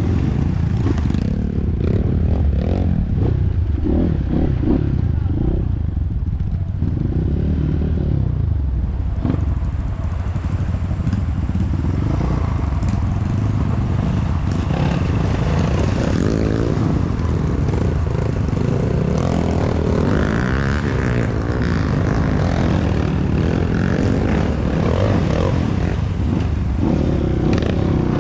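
Off-road trail motorcycle engine running and revving up and down as the bike rides over a rough, wet forest trail, with frequent knocks and rattles.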